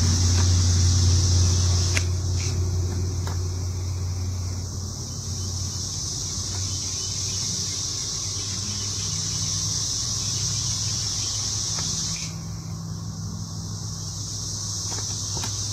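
Steady high-pitched insect chirring in grass, dropping out briefly about twelve seconds in. Under it a low motor-vehicle engine hum fades over the first few seconds, with a few faint clicks.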